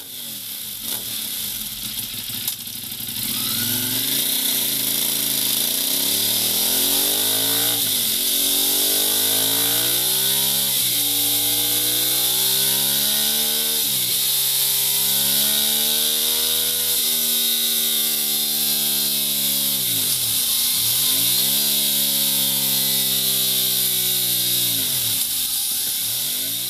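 Ducati Monster 821's L-twin engine running through a Mivv Suono exhaust silencer. After a short settled stretch it is revved hard again and again, its pitch climbing for about three seconds and then dropping sharply each time.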